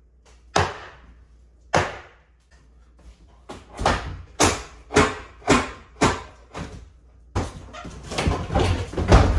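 Hammer blows knocking at a nailed wooden transition piece on a kitchen ceiling during demolition: two single strikes, then a run of about six blows roughly half a second apart. Near the end comes a longer stretch of cracking and clattering as the piece breaks loose.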